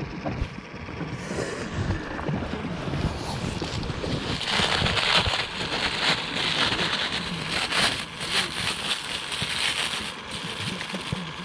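Wind buffeting the microphone over water lapping, with a louder hissing stretch in the middle and scattered light knocks.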